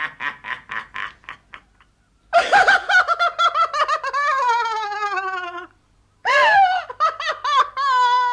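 High-pitched creepy laughter for horror scenes. A fading run of quick staccato laughs is followed, twice, by a burst of laughs that stretches into a long drawn-out note sliding slowly down in pitch.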